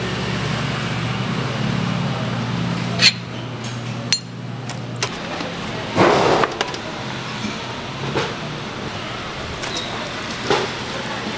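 Clinks and knocks of a stainless-steel perforated tray being handled on a steel counter. There are a few sharp clicks, and the loudest clatter comes about six seconds in, as the tray is set down. Under it runs a steady low hum that stops about five seconds in.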